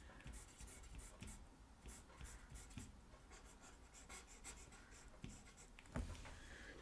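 Faint scratching of a stylus on a drawing tablet in quick short strokes, with a soft thump about six seconds in.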